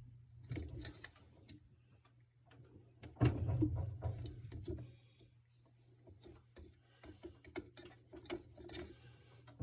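Scattered small clicks and knocks of fridge fan-motor parts being handled and fitted, with a louder clatter about three seconds in, over a low steady hum.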